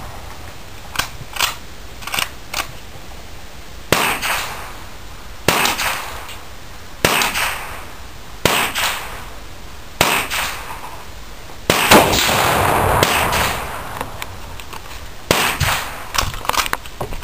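Rifle shots fired in a steady string, roughly one every second and a half, each sharp crack followed by a long fading echo. A few fainter pops come in the first couple of seconds.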